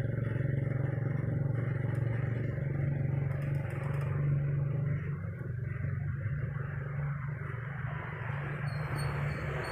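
Motorcycle engine of a motorized tricycle running steadily close by as a low drone. It weakens about halfway through while a steady rushing noise grows louder.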